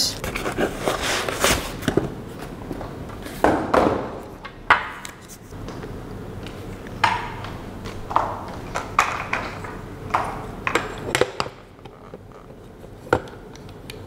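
Metal hardware and the device being handled and set down: a string of short clinks and knocks, with rustling of packing in the first few seconds.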